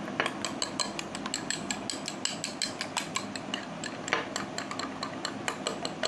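Spoon beating a thick rice-and-almond paste in a glass bowl: quick, steady clinks and taps of the spoon against the glass, several a second, over a soft scraping.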